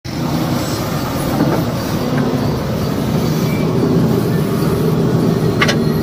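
JCB 3DX backhoe loader's diesel engine running steadily, with one short click near the end.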